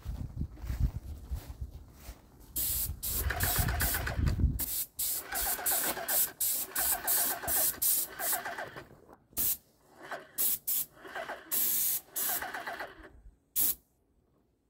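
Paint spray gun spraying green exterior paint onto a wall in many short on-off spurts of hiss as the trigger is pulled and released, with a low rumble during the first few seconds.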